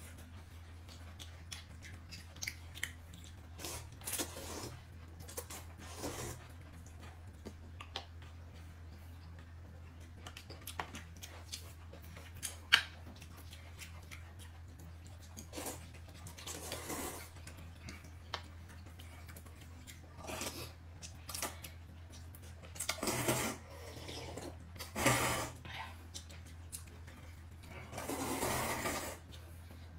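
Scattered small clicks and rustles, with a few louder noisy bursts in the second half, over a steady low hum.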